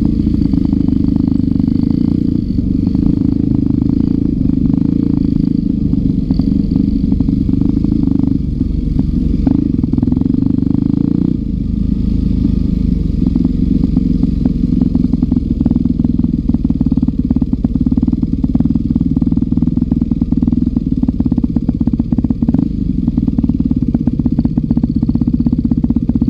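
Dirt bike engine running while riding on a gravel track, with frequent rattling clicks throughout; its note changes about eleven seconds in.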